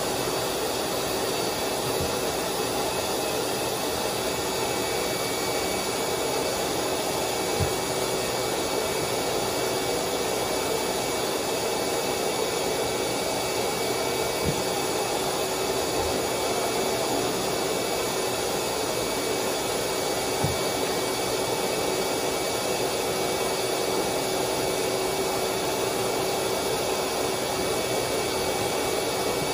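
Steady whir of an electric motor, with a few faint knocks.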